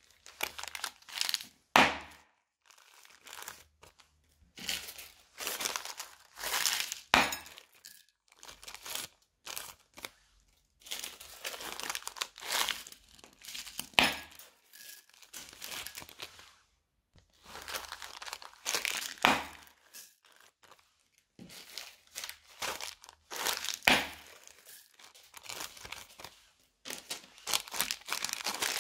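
Small plastic zip-lock bags crinkling as they are handled, opened and emptied, with beads and other slime add-ins clicking and pattering into a glass bowl. The sound comes in separate bursts of a second or two, with short quiet gaps between them and several sharp clicks.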